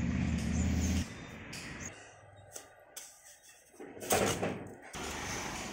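Steel trowel scraping and patting wet cement mortar onto the top of a brick pillar, in short irregular strokes; the loudest scrape comes about four seconds in.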